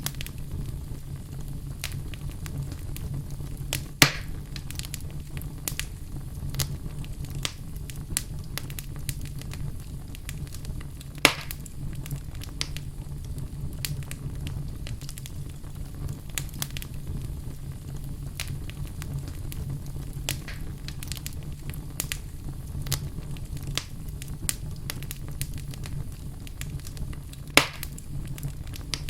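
Wood fire in a fireplace crackling, with many small irregular snaps over a low steady rumble and three louder pops spread through it.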